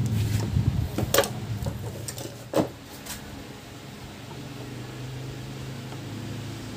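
A screwdriver and the plastic parts of an electric fan's motor housing being handled, with three sharp clicks and knocks in the first few seconds, over a steady low hum.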